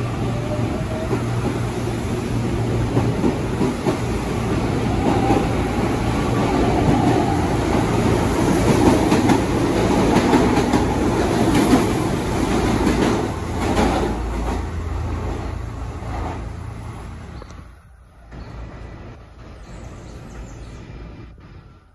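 CAF Series 7000 electric multiple unit pulling out of the station and running past, with a rising whine near the start and a steady low hum. It grows louder to a peak about ten seconds in, then fades away as the train leaves.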